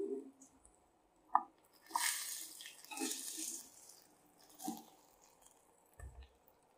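A spatula moving pieces of fried fish around in a steel plate: scattered clinks and scrapes, with a longer scraping rustle about two seconds in and a dull thump near the end.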